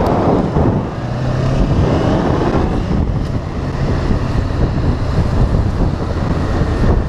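2013 Honda CB500F's parallel-twin engine running at speed, a steady low hum, with wind rushing over the camera microphone.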